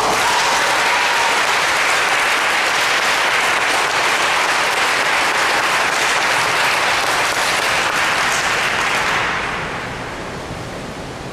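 A group of onlookers clapping, starting suddenly and dying away about nine seconds in.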